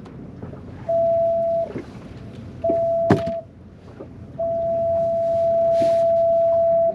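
An electronic beeper sounds a steady single-pitch tone three times: two short beeps under a second each, then a long one of about two and a half seconds. A sharp knock comes during the second beep.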